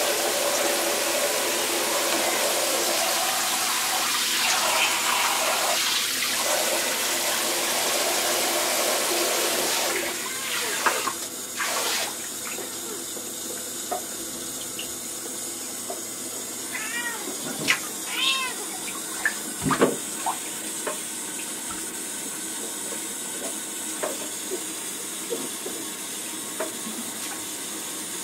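Water running from a handheld shower into a bathtub, with splashing in the shallow water. The flow is louder for the first ten seconds or so and then quieter. A few short squeaks come a little past halfway.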